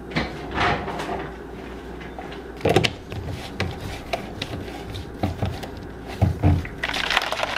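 Plastic drinking bottles handled and set down on a stone kitchen countertop: scattered knocks and clicks, the loudest about three seconds in, as the lid of a CamelBak Chute bottle is gripped. A steady rushing noise starts near the end.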